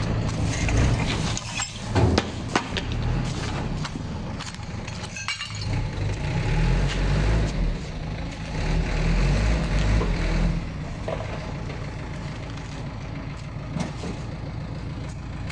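Small flatbed truck's engine running as the truck manoeuvres, growing louder and heavier for about five seconds in the middle before settling back to a steady idle. A few sharp knocks come about two and five seconds in.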